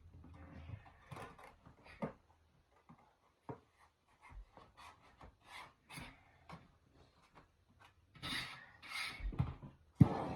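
Vinyl plank tiles being handled and pressed into place on a glue-down floor: scattered light clicks and rubbing, then two short scraping strokes near the end. A louder steady hiss begins suddenly just before the end.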